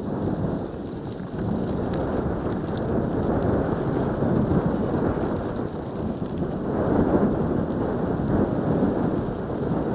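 Wind buffeting a helmet-mounted camera's microphone as a dense, steady rumble while a mountain bike rides fast down a loose dirt and gravel track, with tyre noise from the rough surface mixed in.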